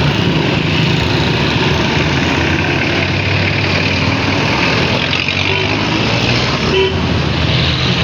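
Road traffic with a running vehicle engine, a steady low hum under loud noise, heard while riding along a road.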